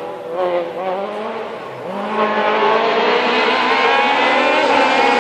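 Rally car engine under hard acceleration, getting louder as it approaches, its revs climbing steadily from about two seconds in. Before that a fainter engine note wavers up and down.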